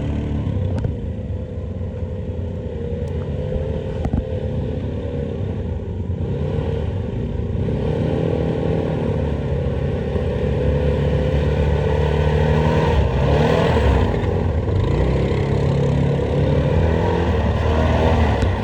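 ATV engine running as it is ridden, its pitch rising and falling a little with the throttle. A single sharp knock about four seconds in.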